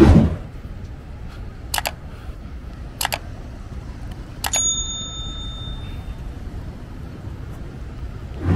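Steady outdoor city background noise with a few sharp clicks spread through. About halfway, a click is followed by a short metallic ding that rings for about a second. A loud rushing swell comes at the very start and again at the end.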